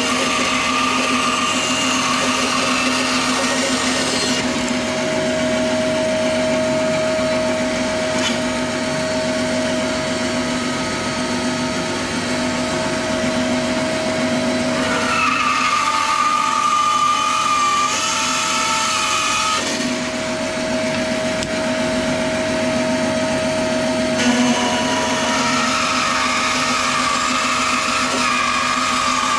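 Belt grinder running steadily with a constant motor hum. In three stretches, near the start, in the middle and near the end, a higher whine and rougher grinding noise come in as a knife handle is ground on the belt.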